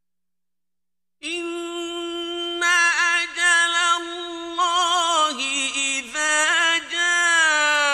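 About a second of silence, then a man chanting Quran recitation in the ornate mujawwad style. He holds a long steady note, then slides lower through quick wavering melodic turns.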